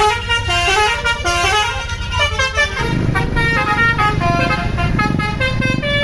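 Bus's telolet horn, a Basuri V3 multi-tone horn, playing a quick melody of short stepped notes. About three seconds in, a heavy engine rumble and road noise come in underneath while the horn keeps playing.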